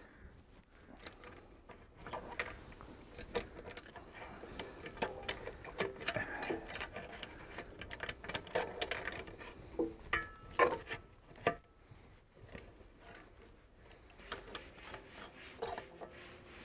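Small metallic clicks and scraping of a prop-nut wrench and the outdrive's propeller nut being unscrewed from the splined propeller shaft, with a run of quick, even ticks near the end as the loosened nut turns off.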